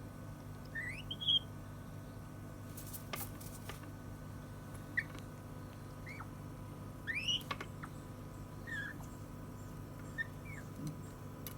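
African grey parrot giving short squeaky whistles that rise quickly in pitch, about eight of them spaced irregularly, with a few sharp clicks about three seconds in.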